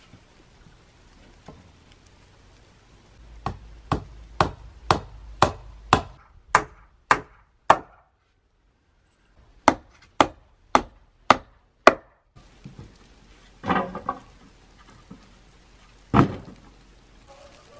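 Hammer blows on wooden boards: a run of nine sharp strikes about two a second, a short break, then five more. Near the end come a longer, rougher wooden clatter and one heavy knock.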